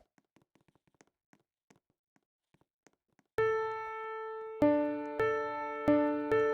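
Electric piano or keyboard playing a simple elevator-music tune: a few faint clicks, then about three seconds in a held chord starts, followed by new chords struck every half second to a second.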